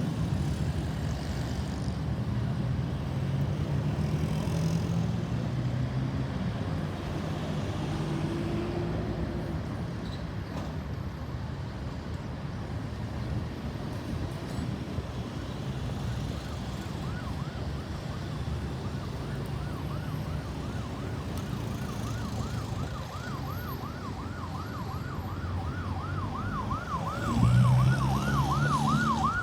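Road traffic with vehicle engines running, then an ambulance siren in a fast yelp, sweeping up and down about three times a second, coming in faintly past the middle and growing louder as it approaches. Near the end a vehicle's engine swells loudly as it passes close.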